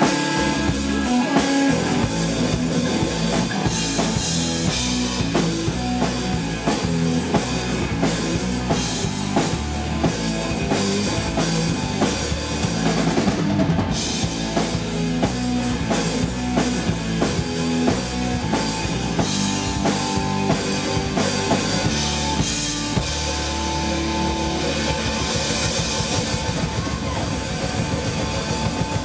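Live rock band playing loudly, led by a drum kit with kick drum and cymbals and an electric guitar.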